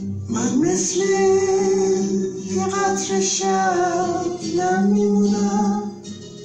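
A woman singing a slow melody with long held notes over a steady musical accompaniment.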